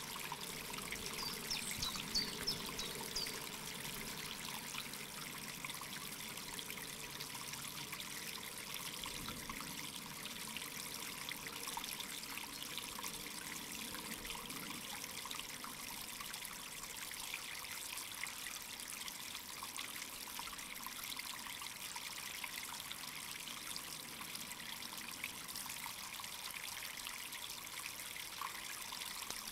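Steady trickling of running water, with a few short high notes about two seconds in.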